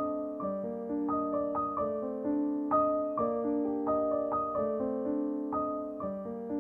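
Background piano music: a melody of ringing, overlapping notes, a new note about every half second.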